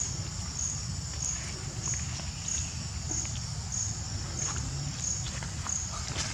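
An insect calling outdoors: a high-pitched chirp repeating at an even pace, about one and a half chirps a second, over a low rumble and a few faint clicks.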